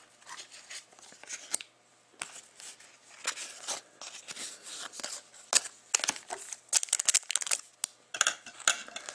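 Trading cards and foil-wrapped card packs being handled: a string of short, crisp rustles, crinkles and card clicks at an irregular pace.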